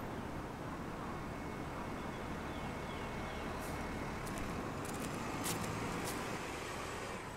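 Steady outdoor background of distant road traffic, a low continuous hiss and hum. A few short faint clicks come about halfway through.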